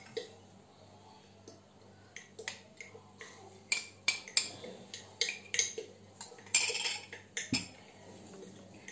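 A metal spoon clinking and scraping against a glass jar and glass dish as melted chocolate is scooped out: a run of short, irregular clinks and knocks, with one longer scrape about two-thirds of the way through.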